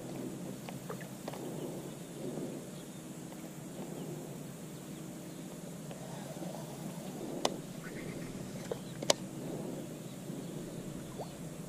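Boat motor humming steadily at low speed, with two sharp clicks in the second half.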